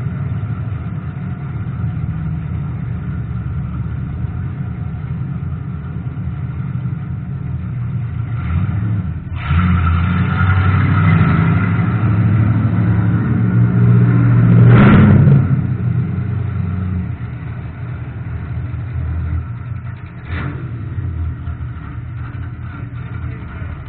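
Race car engines running: a steady low engine sound throughout, with other cars driving past on the track. The engine noise swells from about nine seconds in and peaks around fifteen seconds as a car passes close, then falls away. A brief sharp sound comes about twenty seconds in.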